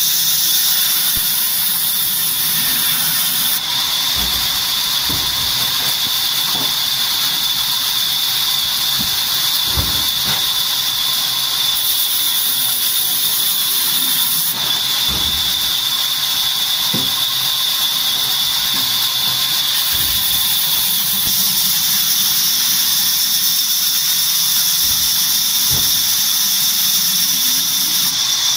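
Large band saw cutting through a log: a steady high-pitched squeal from the blade over a hiss.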